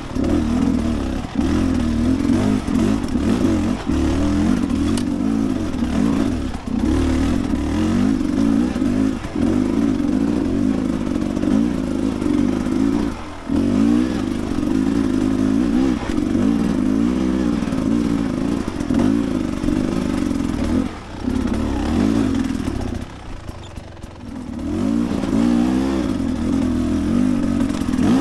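Dirt bike engine running under load, its revs rising and falling over and over as the throttle is worked, with brief dips and a longer easing off about 23 seconds in before it picks back up.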